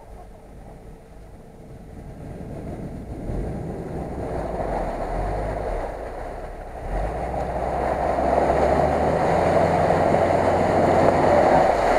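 Subaru Forester driving through shallow lake water: the engine pulls steadily while water sloshes and sprays off the wheels and body. Both grow louder as the car comes closer, and the engine note steps up about seven seconds in.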